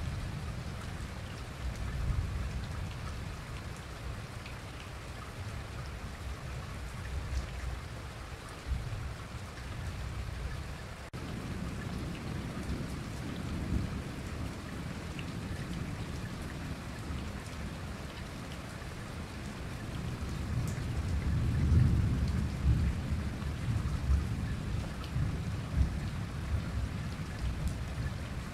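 Thunderstorm: steady rain with deep, rolling rumbles of thunder that swell loudest about three-quarters of the way through.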